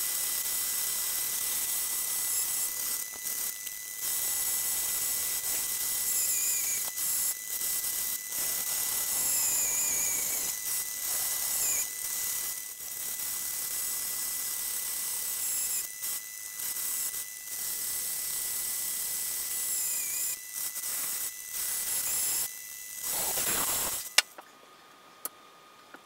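Bandsaw running and cutting through aluminium plate: a steady high whine and hiss from the blade, with short falling squeals as the plate is fed and turned along a curve. Near the end the sawing cuts off, followed by two sharp clicks.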